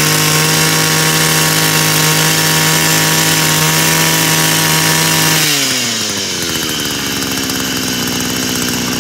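Hitachi FCG23E 23cc two-stroke brush cutter engine running at high revs on a test run. About five and a half seconds in, the throttle is let off and the engine drops back to idle.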